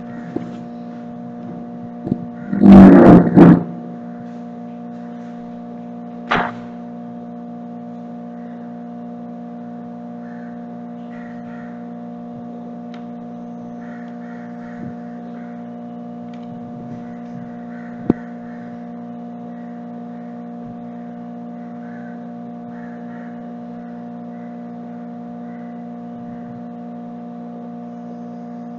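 A steady hum of several fixed tones throughout, with a loud burst of knocking and bumping about three seconds in, a shorter thump around six seconds and a single sharp click near eighteen seconds.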